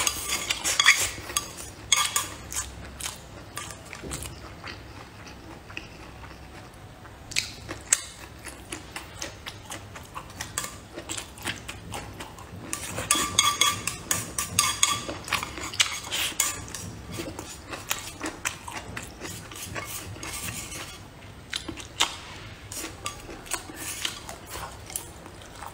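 Chopsticks clicking and scraping against a ceramic bowl, with close-miked chewing and eating sounds. The clicks come thick at the start and again about halfway through.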